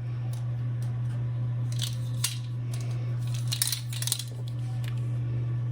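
A measuring spoon scraping in a spice container, with short scrapes about two seconds in and again near four seconds, over a steady low hum.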